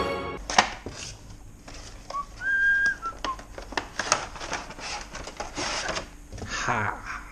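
Cardboard and plastic packaging rustling and clicking as a product box is opened and a moulded plastic tray is slid out. About two seconds in comes a short whistle of three notes, the middle one held, and near the end a brief sound that falls in pitch.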